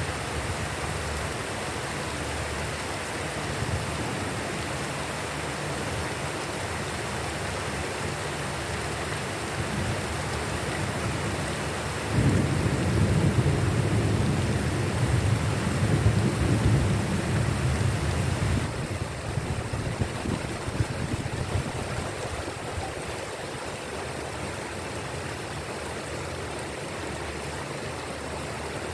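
Steady heavy rain falling. About twelve seconds in a low rumble of thunder rises suddenly and rolls on for some six seconds before it fades back under the rain.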